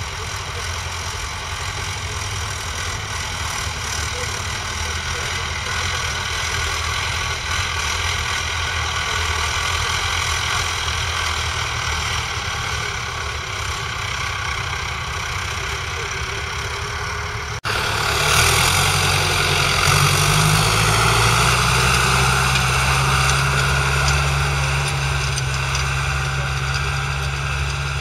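John Deere 2130's 3.9-litre four-cylinder diesel engine running steadily at idle. After a brief break about two-thirds of the way in it runs louder, its note stepping up as the tractor pulls the chisel plough.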